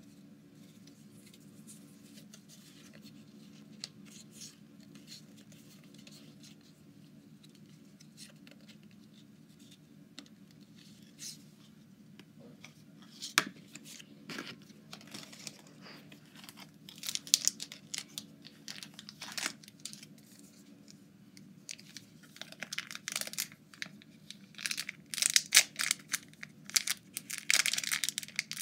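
Foil Pokémon booster pack wrapper being crinkled and torn: scattered crackles and clicks at first, then a dense run of crinkling over the last several seconds, with a low steady hum underneath.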